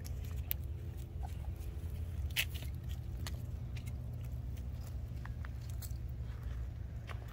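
A Great Dane sniffing and nosing among shell-covered rocks, with scattered short crunches and clicks over a steady low rumble.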